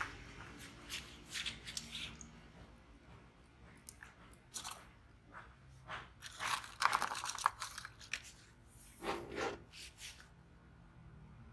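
Thin plastic tubs being handled, with irregular crinkling, crackling and clicking, busiest about two-thirds of the way in.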